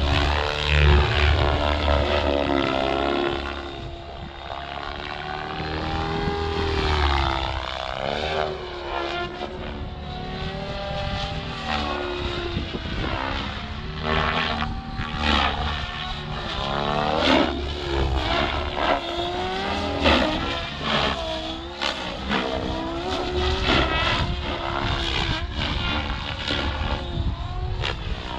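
Electric XLpower Specter V2 700-size RC helicopter in aerobatic flight: its rotor blades and electric motor give a whirring whine that rises and falls in pitch over and over as the blades load and unload, with many short, sharp swishes of blade noise.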